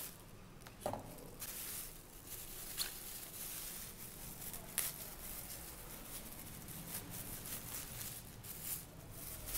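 Thin plastic packaging crinkling and rustling as hands unwrap a flexible tripod from its bag and cardboard box, with a few short sharp clicks and knocks, the loudest about a second in and near five seconds.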